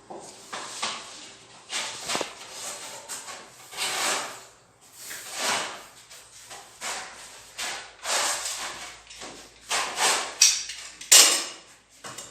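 Putty knife scraping and spreading filler over a wall or drywall joint: a run of rasping strokes, about one a second, with the sharpest stroke near the end.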